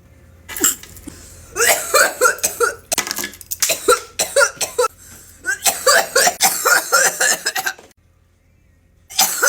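A person in a hard coughing fit after a big vape hit: a long run of rapid, hacking coughs that starts about a second and a half in and stops about eight seconds in.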